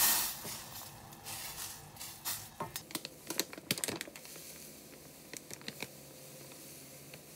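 A short hiss as orange peels are stirred in hot syrup with a wooden spatula. Then granulated sugar is poured into a glass container, heard as a scattered patter of small ticks that is densest around three to four seconds in and then thins out.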